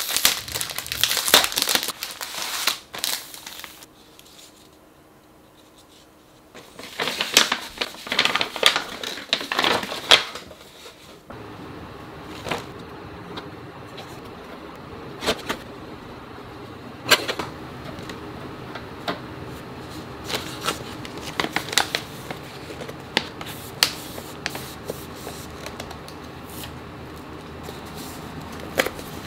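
Clear plastic cookie bags crinkling as they are handled and folded shut, with paper gift bags rustling and light taps. The crinkling is densest in the first three seconds and again about seven to eleven seconds in; after that come sparser rustles and taps over a steady low hum.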